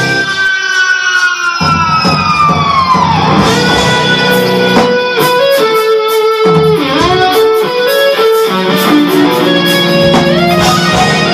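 Live rock band with an electric guitar soloing: a held guitar note slides down in pitch over about three seconds, and another quick dip and rise comes around the middle, over bass and drums.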